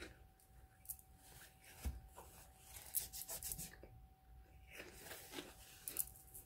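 Faint rustling, scraping and small clicks of a person chewing a large bite of food with her hand over her mouth, with the handling of chopsticks and clothing close by.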